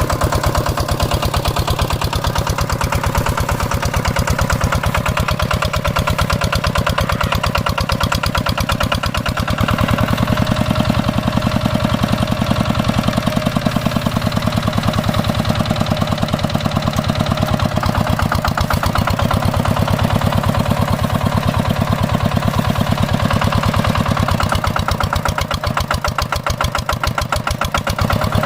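Hand tractor's single-cylinder diesel engine running steadily with a rapid, even beat of firing pulses, growing a little louder about ten seconds in.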